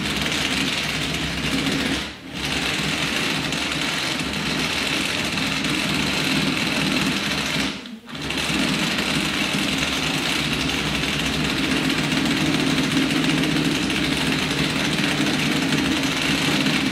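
Handheld power tool running steadily as the rusted windshield frame is cleaned up before priming. It stops briefly twice, about two seconds in and again about eight seconds in.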